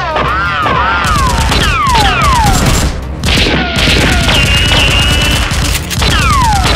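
Dubbed gunfire sound effects: a fast rattle of shots with repeated falling-pitch zaps, dipping briefly about three seconds in.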